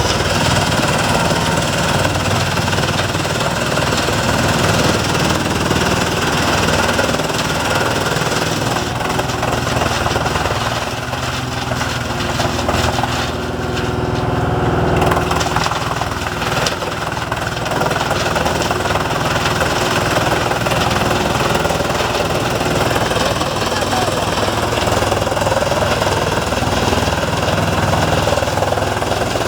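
Large wood chipper running hard, its engine running under load with a continuous rapid clatter as it shreds wood.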